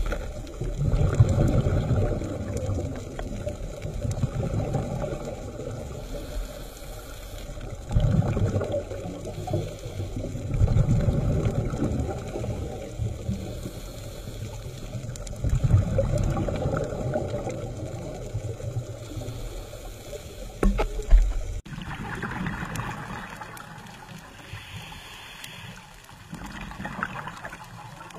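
Scuba diver's exhaled air bubbling out of a regulator underwater, a rumbling surge about every four seconds; after about 22 seconds the bubbling is quieter.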